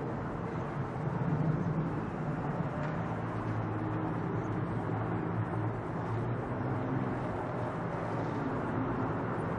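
Boeing 767 jet airliner climbing after takeoff: a steady jet engine roar with a low hum running through it.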